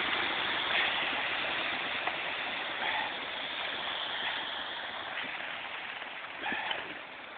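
Wet concrete pouring and sliding into a form: a steady rushing noise that slowly fades toward the end.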